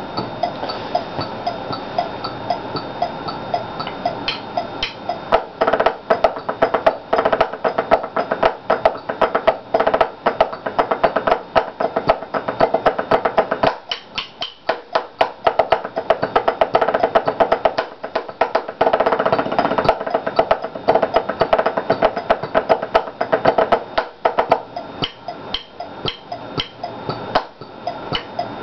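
Marching snare exercise played with tape-wrapped sticks on a practice pad: rapid, even strokes with a dry, wood-block-like tap. It starts soft, gets louder about five seconds in, drops back briefly twice mid-way, and eases off again near the end.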